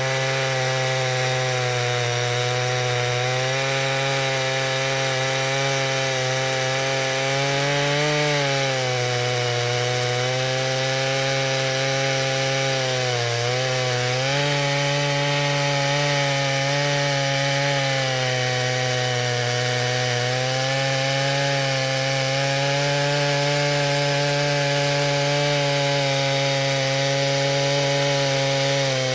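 Stihl MS 881 chainsaw running at full throttle, milling a log lengthwise in an Alaskan chainsaw mill. The engine holds a steady pitch, sagging briefly twice, about a third of the way in and again near the middle.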